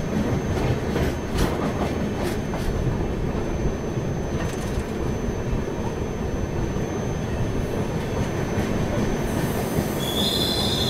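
Passenger train coach rolling slowly into a station: the wheels rumble and clatter over the rail joints with a few sharp clacks, under a thin high wheel squeal. About ten seconds in, a louder, higher squeal sets in as the brakes slow the train for its halt.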